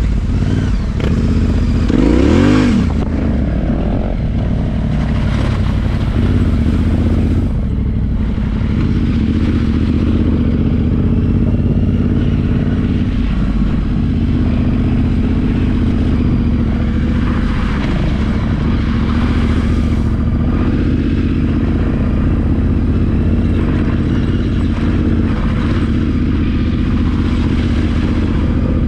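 Yamaha Ténéré 700's parallel-twin engine running steadily under way, with a brief rev that rises and falls about two seconds in.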